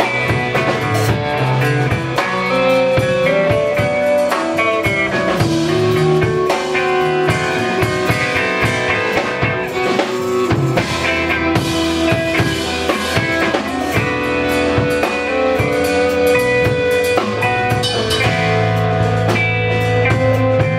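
Live band music: electric guitar with drum kit, sustained guitar notes over steady drumming.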